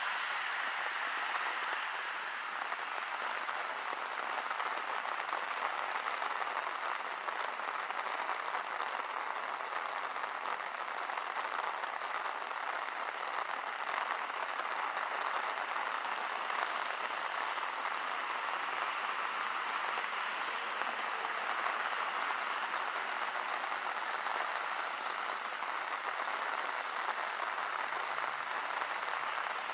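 Steady rain falling, an even hiss that barely changes in level.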